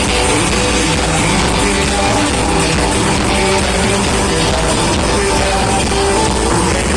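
A live band playing amplified music, loud and steady, with sustained guitar or keyboard notes over a heavy bass.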